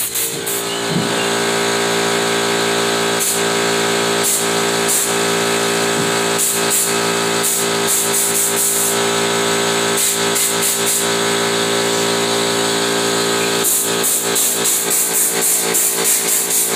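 Air compressor running with a steady drone that comes on just after the start, under repeated short hissing bursts of compressed air from an air-line spray gun spattering paint.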